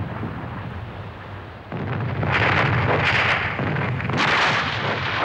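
Naval cannon fire sound effect: a low rumble, then from under two seconds in several loud blasts of gunfire and explosions in quick succession.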